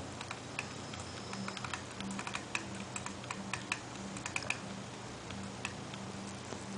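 A run of light, irregular clicks and taps from small objects being handled, over a faint steady hum.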